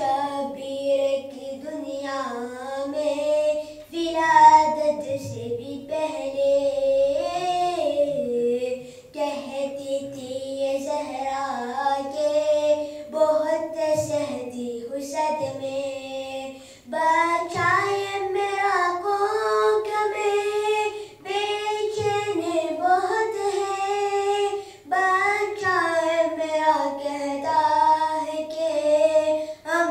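A boy's solo voice singing an unaccompanied devotional chant into a microphone, in long melodic phrases with wavering held notes and short breaths between them.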